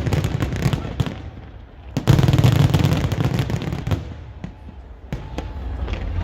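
Aerial fireworks going off: a loud boom with deep rumble at the start and another about two seconds in, each followed by dense crackling that thins out and fades toward the end.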